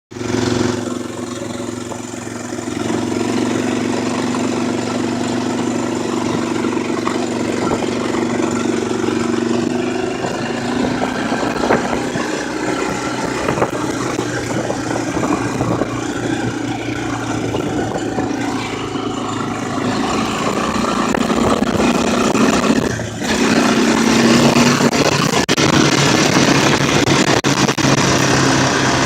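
Four-wheeler ATV engine running as it is ridden, its pitch shifting up and down with the throttle. The engine note drops briefly about 23 seconds in, then comes back louder.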